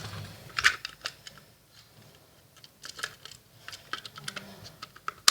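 Irregular small plastic clicks and taps from a digital multimeter's case being handled and fitted back together, a few at a time, with a quieter gap in the middle.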